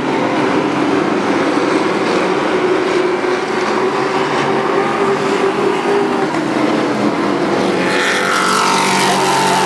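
Racing truck engines running at speed as a pack laps the short oval. Near the end one truck passes close by, its engine note falling in pitch as it goes past.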